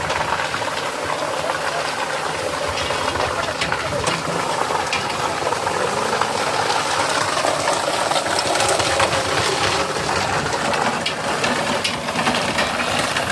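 Concrete mixer truck at work: a steady rushing, hissing noise with the engine running under it and scattered clicks and knocks.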